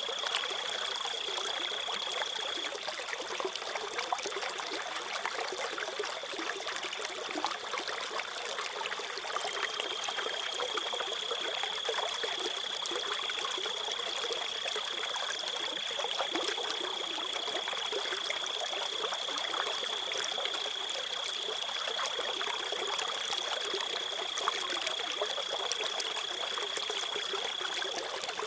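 Crickets trilling in a steady high tone over the trickle of a flowing stream.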